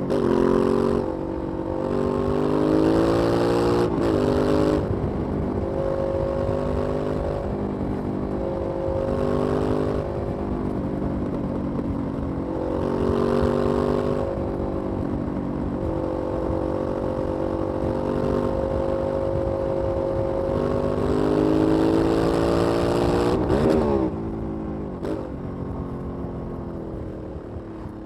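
Aprilia 900 V-twin motorcycle engine on its stock exhaust, pulling through the gears. Its pitch climbs and then drops at each shift, holds fairly steady through the middle, and falls away after a last rise about 24 seconds in as the throttle closes.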